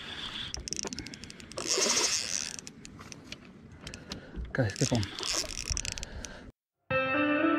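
Fishing reel's ratchet clicking rapidly as line is wound or pulled, with two louder bursts of noise. Near the end the sound cuts out and soft ambient music begins.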